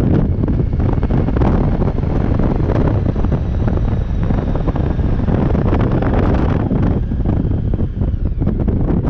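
Heavy wind buffeting on the microphone of a moving motorcycle, with the bike's engine running underneath as it slows down.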